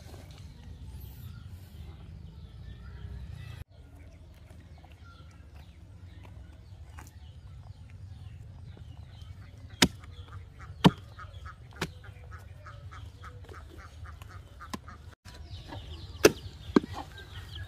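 A small axe striking a felled palm trunk: three sharp chops about a second apart midway, then two more near the end. Birds call in the background.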